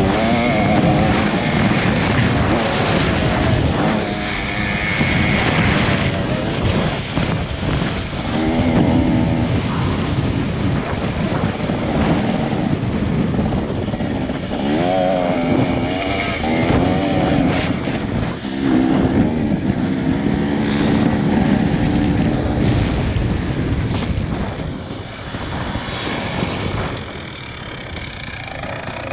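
Motocross dirt bike engine being ridden hard, revving up and easing off again and again, its pitch climbing and falling with throttle and gear changes. It runs quieter near the end.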